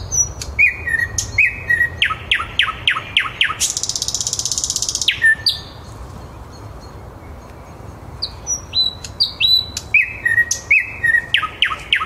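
Thrush nightingale singing. A phrase of high whistled notes leads into a run of fast down-slurred strokes and a dry buzzing rattle. After a pause of about two and a half seconds midway, it starts the same phrase again.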